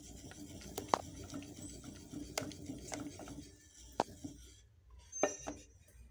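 Wooden spoon stirring a thick ice-cream custard in a metal saucepan: a soft scraping of the spoon along the pan, broken by several sharp knocks of the spoon against the pan's side.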